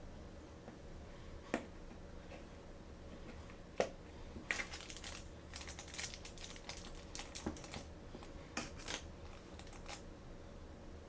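Small plastic toy packaging being handled and opened by hand: two sharp clicks, then a run of quick crackling clicks for several seconds. A faint steady hum sits underneath.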